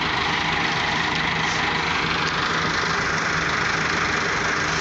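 Massey Ferguson tractor's diesel engine running at a steady speed, with no change in pitch or load.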